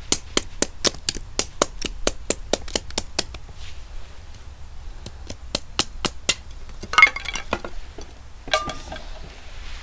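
A quick, even run of light sharp knocks, about five a second, as a knife is tapped down through a small piece of dry wood to split it. A few more knocks follow after a pause, then two rougher cracks near the end as the wood splits.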